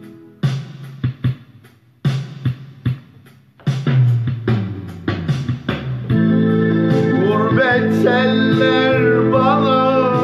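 Electronic keyboard being played: for about six seconds, short sharp chord stabs and drum hits with brief gaps between them, then a full sustained accompaniment with a wavering lead melody over it.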